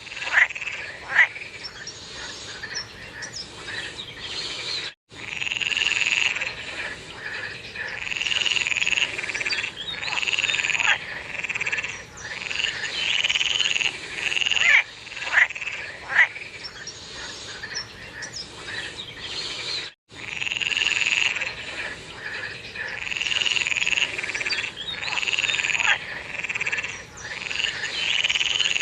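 A chorus of frogs calling in overlapping rounds, with a few sharp, louder single calls standing out. The sound is cut by two brief dropouts, about five seconds in and again near twenty seconds.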